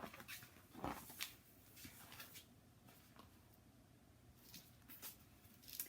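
Near silence in a small room, with a few faint, short clicks and rustles scattered through it.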